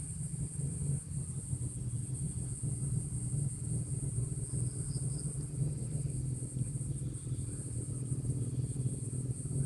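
Insects, crickets or cicadas, keeping up a steady high-pitched drone over a low steady rumble, with a few faint short chirps about halfway through.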